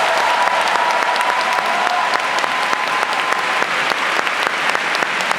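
Arena crowd applauding steadily, a dense patter of many hands clapping. A single held tone carries on under the clapping and fades out about three and a half seconds in.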